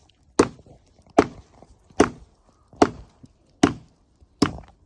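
Hatchet chopping into wood: six sharp, evenly paced blows, about one every 0.8 seconds.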